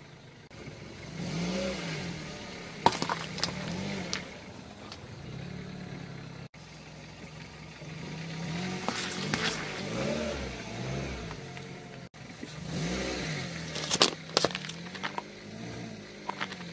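A car engine revving up and down as the car creeps forward, with sharp cracks and crunches as its tyre crushes food items, among them oranges and a plastic pudding cup that bursts. The sound breaks off twice at cuts between clips.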